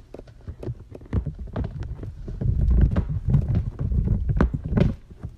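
Close-up handling noise from a cat pressing and rubbing its furry body against a phone, with irregular knocks and bumps over a low rumble that grows heavier midway through.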